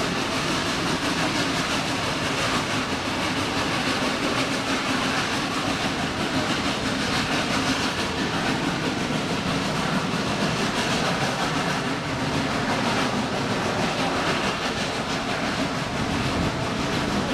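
Open-sided passenger car of a steam train rolling along the track, heard from aboard: a steady rumble and rattle of wheels on rail and the car's body.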